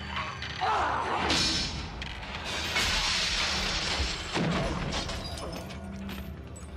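Film soundtrack effects: a sound falling in pitch early on, then a crash with shattering about two and a half seconds in that lasts over a second, under background music.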